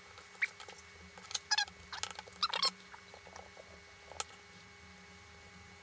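Faint scattered squeaks and clicks of smoked beef short rib meat being pulled off the bone, with one sharper click about four seconds in.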